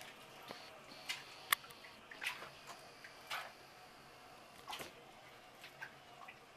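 Bathwater in a tub splashing and dripping faintly, with a handful of short sharp splashes and clicks.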